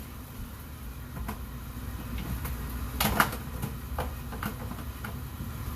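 Kitchen cookware and utensils being handled: a few light clicks and one sharper knock about three seconds in, over a steady low hum.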